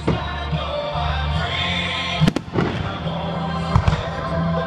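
Fireworks going off, with a sharp bang a little over two seconds in and a smaller one near the end, over music.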